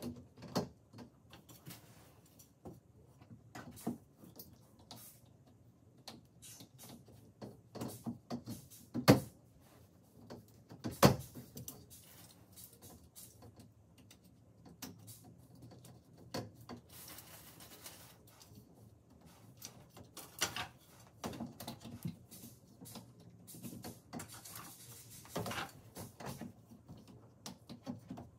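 Wooden bed slats being handled and fitted into the bed frame's slat holders: scattered clicks, knocks and rubbing, with two louder knocks about a third of the way in.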